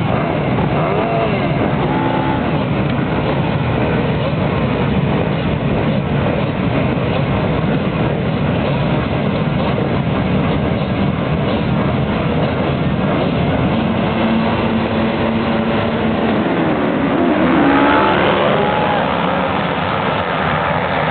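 A field of motocross bikes revving together at the start gate, many engines held at high revs at once. About three-quarters of the way through the gate drops and the pack accelerates away with rising engine pitch, the loudest moment.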